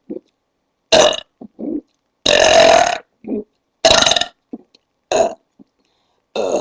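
A woman belching loudly, five burps in a row, the one about two seconds in held longest, with short, quieter sounds between them.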